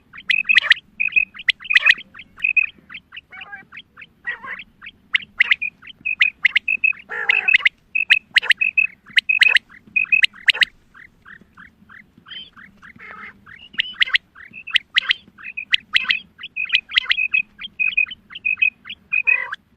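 Female quail calling: a rapid, continuing series of short, high chirping notes, several a second, broken by a few harsher, rougher notes. This is the hen's call used by hunters to lure quail.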